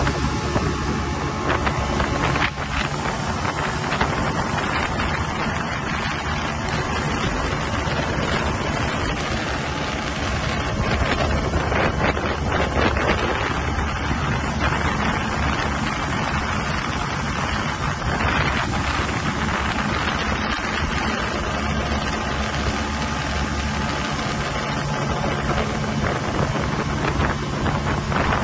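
Engine of an open aluminium river boat running steadily under way, a constant low hum. Wind buffets the microphone over it.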